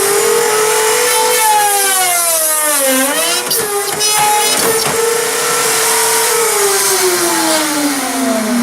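Porter-Cable production pocket cutter's motor running with a loud whine. About three seconds in its pitch dips under load as the bit cuts the pocket into birch plywood, then recovers. Near the end the motor winds down, its pitch falling.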